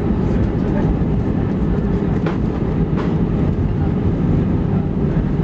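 Steady rumble inside the cabin of an Airbus A319 rolling on the ground just after landing: engine and wheel noise, with a couple of light clicks about halfway through.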